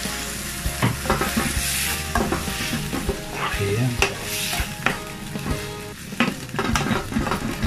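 Chicken liver, chicken breast and onions sizzling in a coated frying pan with freshly added soy sauce, while a wooden spatula stirs them, scraping and clicking against the pan bottom.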